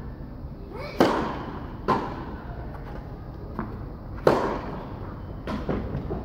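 Tennis balls being struck by rackets in a rally: two loud, sharp racket hits about three seconds apart, each ringing on in the echo of an indoor tennis hall, with fainter hits and bounces between them.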